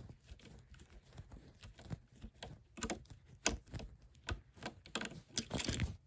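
Phillips screwdriver turning out a tiny screw from a metal stand mount: irregular small clicks and scrapes of the tip working in the screw head, busier in the last second.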